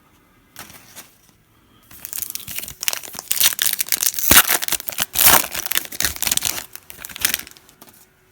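A trading-card pack's wrapper crinkling and tearing as it is opened. The crackling runs thick from about two seconds in and stops shortly before the end.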